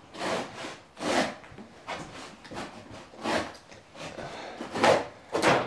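Stanley utility knife slicing through thick carpet and underlay in a series of short strokes, about six of them, roughly one a second.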